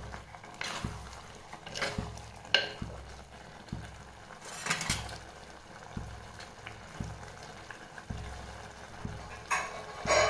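A steel spoon stirring and scraping thick papaya curry in a clay pot for the first few seconds, then the curry simmering on the stove with soft bubbling pops about once a second.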